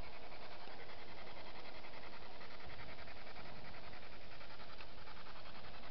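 Night insects chirping in a steady, rapid pulsing chorus over a constant hiss.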